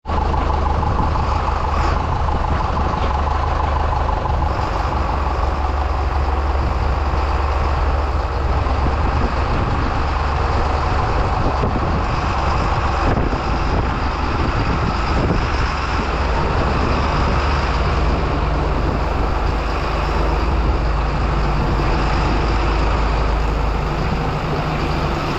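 A heavy vehicle engine running steadily under way, a deep even rumble that does not let up.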